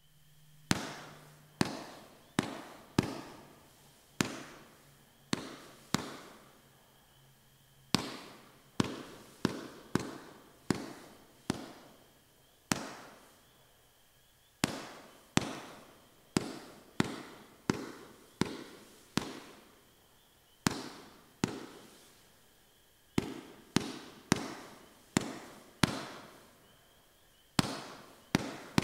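Black Cat Color War, a 48-shot 500 gram multi-shot firework cake, firing its tubes one after another. Each shot is a sharp bang with a trailing echo, about one to two a second, with a few short pauses between volleys.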